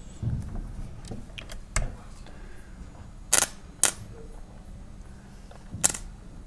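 Sharp, irregular electrical cracks as two salt-wetted copper mains conductors on a hand-cranked test rig spark against each other under a load of nearly 18 amps. The cracks come a handful of times, the loudest a little after three seconds and near six.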